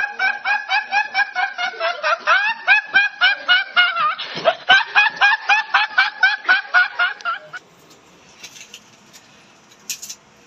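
A teenage boy's high-pitched laughter: a rapid, unbroken string of short giggles, about four or five a second, that stops suddenly about seven and a half seconds in.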